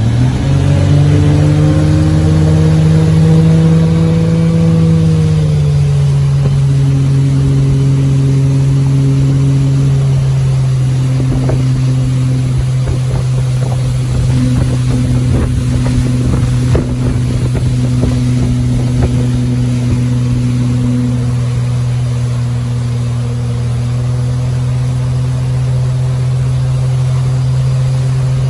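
Tow boat's engine pulling hard as it hauls a wakeboarder up out of the water, then easing down about five seconds in to a steady cruising drone, with water and wind noise underneath.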